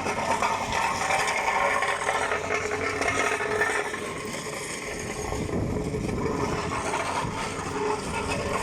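Road-repair machinery running during asphalt patching, with engine noise, scraping and rattling; the low rumble grows stronger about halfway through.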